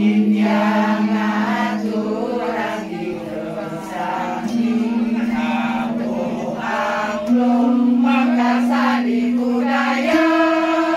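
Balinese gamelan angklung: bronze-keyed metallophones struck with mallets, low notes ringing for seconds with a pulsing beat and stepping to a new pitch about every three seconds, under fast interlocking higher figures.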